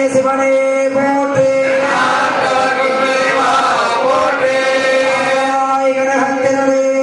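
Priests chanting mantras together on one steady, held note, with other voices rising and falling over it.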